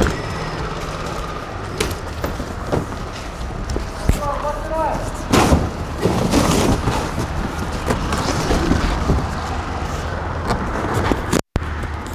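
Large cardboard motorcycle crate being pulled open by hand, its panels rustling and scraping with a few loud flaps about halfway through, over a steady hum of street traffic.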